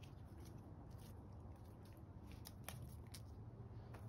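Faint scattered clicks and soft rustles of a cat pawing and batting at a cloth tape measure on a rubber mat, growing busier toward the end, over a low steady room hum.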